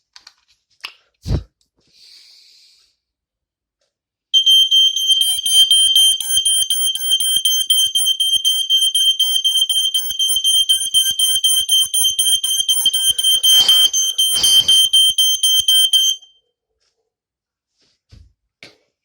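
Vintage Lifesaver smoke alarm going off with a loud, steady high-pitched tone, set off by smoke in a smoke test; it sounds for about twelve seconds, then cuts off suddenly. Before it there is a thump and a short hiss, and two hissing gusts come through the tone near its end.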